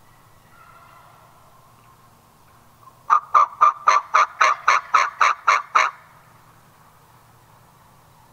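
Wild turkey yelping: a loud, even run of about a dozen yelps, about four a second, lasting some three seconds.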